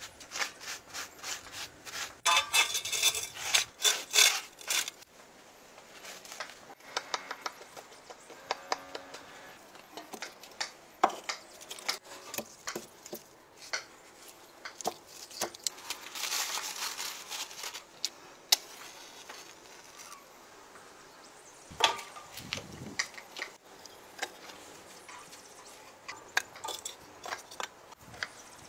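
Dry wood being handled and laid in a stone oven: rustling, rubbing and scraping of kindling and split logs, with many sharp clicks and knocks of wood on wood and stone, busiest in the first few seconds and with a few louder knocks later.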